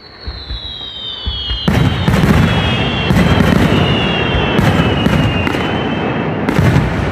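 Fireworks at close range: a high whistle sliding slowly down in pitch, then from under two seconds in, dense crackling and booming of bursting shells.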